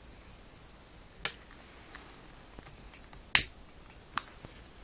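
A few sharp clicks against a quiet background, the loudest about three and a half seconds in, as a long utility lighter is triggered to light the burner of a small vacuum engine model.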